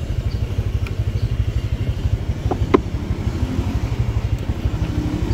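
Motorbike engine running at low speed, a steady low throb with a fast even pulse. Two short sharp blips about two and a half seconds in.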